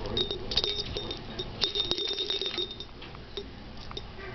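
A caique parrot attacking a toy bird: a rapid, irregular clatter of clicks and clinks from beak and toy, with a thin high ringing twice in the first three seconds.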